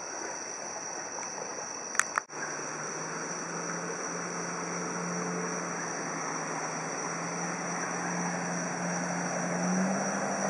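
A pickup truck's engine running low and steady, growing louder and rising slightly in pitch as it drives through street floodwater. Insects trill steadily over a hiss, and two sharp clicks come about two seconds in.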